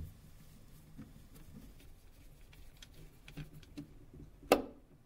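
Hand torque screwdriver fastening small Torx Plus size 4 screws into a Nokia Lumia 720's engine board, tightened to 13 newton-centimetres. It gives faint scattered ticks and taps, with one sharper click about four and a half seconds in.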